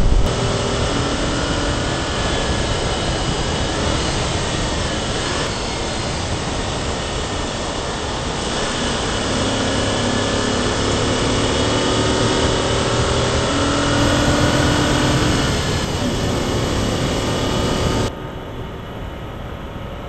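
A car engine running hard on a race track, its note rising in pitch several times as it accelerates, under heavy wind and road noise. Near the end it gives way for a couple of seconds to a quieter, more distant car sound.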